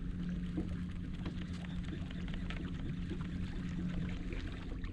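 Bow-mounted MotorGuide electric trolling motor running with a steady low hum, with faint irregular ticks over it.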